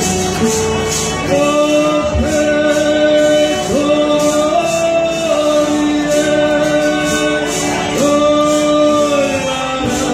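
Folia de Reis ensemble singing: men's voices holding long, drawn-out notes in harmony, phrase after phrase, over strummed guitars and a steady jingling tambourine beat.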